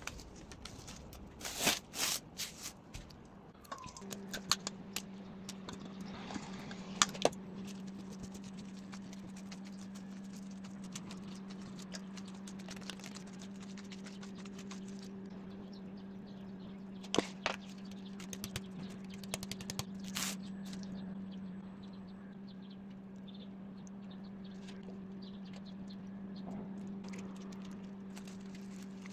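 Bamboo sushi mat and plastic wrap handled by gloved hands while a sushi roll is shaped and rice is spread on nori: scattered light clicks, crackles and rustles, the sharpest near two seconds in and again around seven, seventeen and twenty seconds. A steady low hum starts about four seconds in and carries on underneath.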